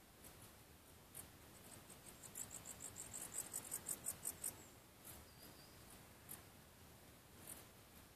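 Faint outdoor animal chirping: a run of about a dozen quick, high chirps that speeds up and grows louder, then stops about halfway through, followed by a brief high whistle.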